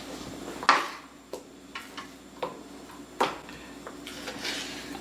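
Kitchen knife cutting up a raw chicken: about half a dozen sharp knocks and taps of the blade spaced irregularly, the loudest under a second in.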